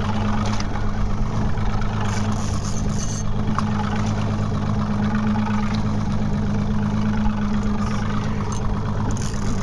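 Boat engine running steadily under way while trolling, a constant low drone over the rush of water and wind.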